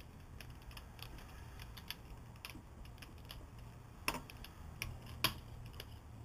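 Light clicks and ticks from a small hand bike pump and tire pressure gauge being handled on an ATC front fork tube's air valve, with a few sharper clicks about four to five seconds in.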